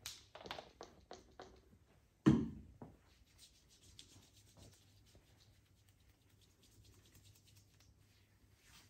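Hands massaging a bare forearm: a few quick strokes at first, one loud thump a little over two seconds in, then soft steady rubbing of palms over skin.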